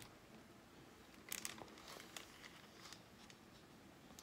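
Near silence, with faint rustling of a picture book's pages being handled, clearest about a second and a half in.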